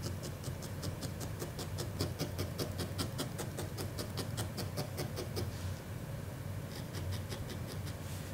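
Felting needle stabbing repeatedly into wool, a rapid, even run of crisp pokes at about six a second that stops about two thirds of the way in and picks up again briefly near the end.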